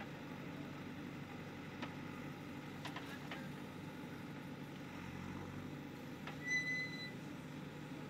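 JCB 3DX backhoe loader's diesel engine running steadily while the backhoe arm swings and empties its bucket of soil into a dump truck. A few sharp clicks or knocks are heard, and about six and a half seconds in there is a brief high-pitched tone.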